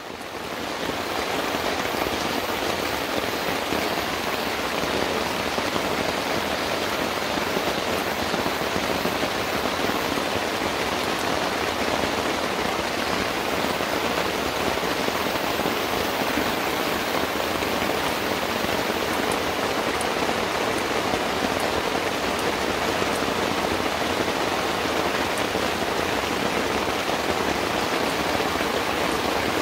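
Steady rain falling, a dense, even hiss that fades in over the first second.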